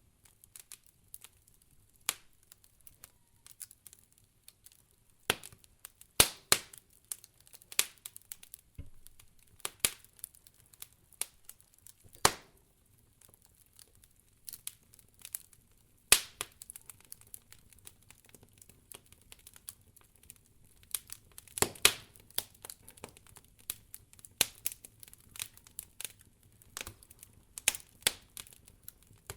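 Fireplace fire crackling: sharp pops and snaps at irregular intervals over a faint low rumble.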